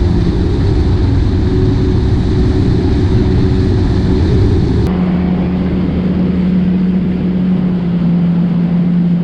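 Yamaha WaveRunner jet ski engine running steadily on the water. About halfway through the sound changes abruptly to a steadier engine hum with one strong low drone.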